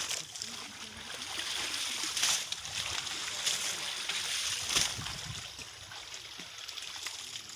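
Water sloshing and splashing as several people wade chest-deep through river water, with a few sharper splashes spread through it.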